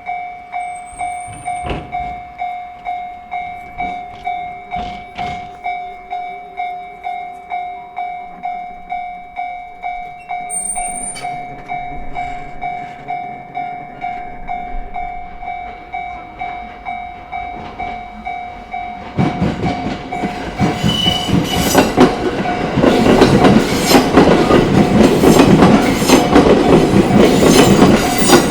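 Japanese level-crossing warning bell ringing at about two strikes a second. About two-thirds of the way in, a JR Sobu Main Line train runs over the crossing, loud wheel noise with clickety-clack over the rail joints drowning out the bell.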